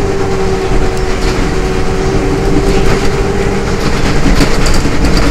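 Train running along the track, heard from inside a carriage: a steady low rumble and hum, with scattered clicks from the wheels and a quick run of clicks near the end.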